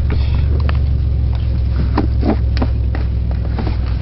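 Car engine idling with a steady low drone, with scattered clicks and knocks over it.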